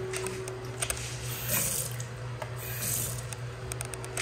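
Water from a two-handle bathroom faucet running into a vanity sink in short spurts, about one and a half seconds in and again near the three-second mark, as the taps are tested, with a few small clicks between.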